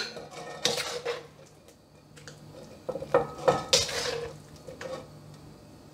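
Metal serving spoon scraping and clinking against a nonstick wok and a plate while stir-fried mustard greens are scooped out, with the loudest scrapes between about three and four seconds in.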